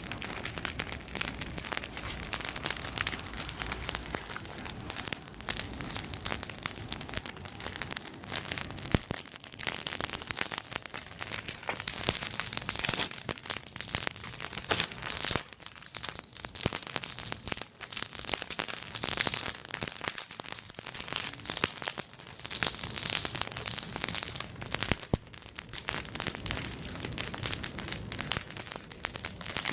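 Wood fire burning hard after flaring up: a dense, irregular run of crackles and pops over a steady hiss of flame.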